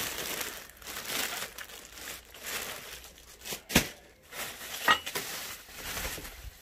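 Plastic packaging and bubble wrap crinkling and rustling as they are handled. Two sharp snaps, about four and five seconds in, are the loudest sounds.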